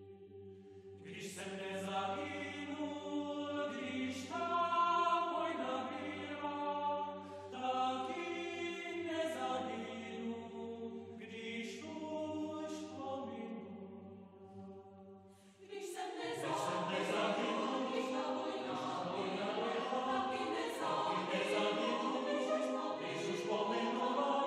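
Mixed choir singing a cappella. Upper voices move over a held low note at first; about two-thirds of the way through, all voices come in together, suddenly fuller and louder.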